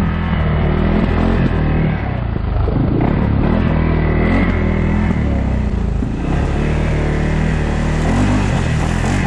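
2022 CFMoto CForce 600 ATV's single-cylinder four-stroke engine running under way on a muddy trail, its pitch rising and falling with the throttle.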